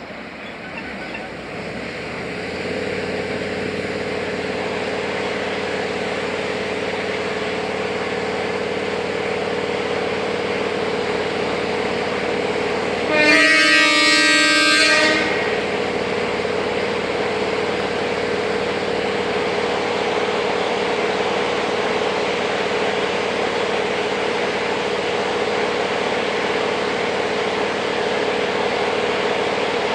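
Diesel locomotive hauling a train of open wagons, its engine running with a steady drone that builds up a couple of seconds in. About halfway through, the locomotive sounds its horn in one blast of about two seconds, the loudest sound.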